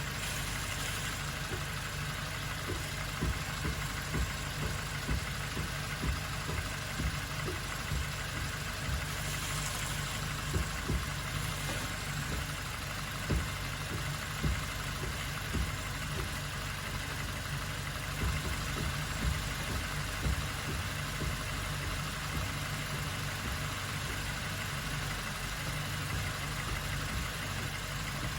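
Suzuki Jimny Sierra JB74's 1.5-litre four-cylinder engine running with a steady drone, with frequent irregular knocks and rattles throughout.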